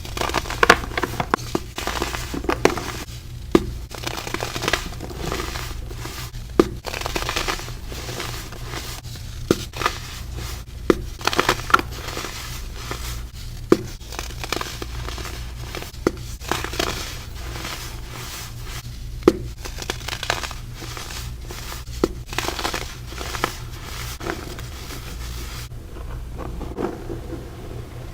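Clumped baking soda being crumbled, giving dense, irregular crunches and crackles, the squeaky 'snowy' crunch, with sharper loud snaps scattered through. The crunching thins out near the end, over a steady low hum.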